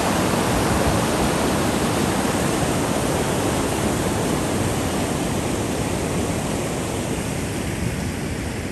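Whitewater rapids of a river running high, rushing over granite ledges in a steady, loud wash of water noise that gradually fades in the second half.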